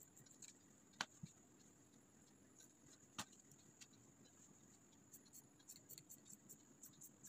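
Near silence with tailoring scissors cutting cotton fabric: a few faint, sharp snips and clicks, the clearest about a second in and about three seconds in, and a run of small soft ticks near the end, over a faint steady high hiss.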